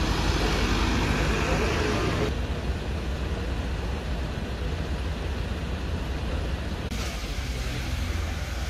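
Idling vehicle engines and street traffic noise: a steady low rumble that shifts abruptly in tone twice, about two and seven seconds in.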